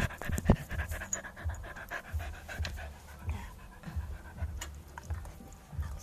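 Rhythmic panting breaths close to the microphone, about two a second, with a few sharp clicks near the start.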